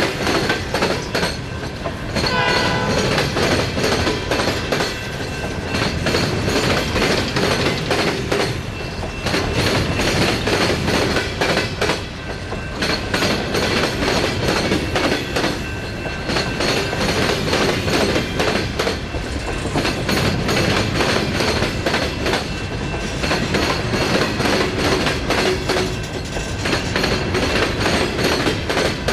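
Empty coal hopper cars of a long freight train rolling past close by, their wheels clacking steadily over the rail joints.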